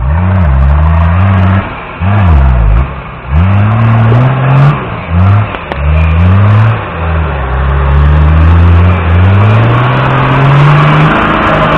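Lifted off-road 4x4's engine revving hard under load as the wheels churn through deep mud, its pitch rising and falling several times in quick throttle bursts, then climbing steadily through the second half.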